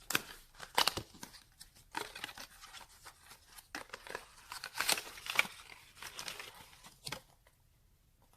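Flashlight packaging being opened and handled by hand: irregular rustling, scraping and crinkling with a few sharp clicks, dying down near the end.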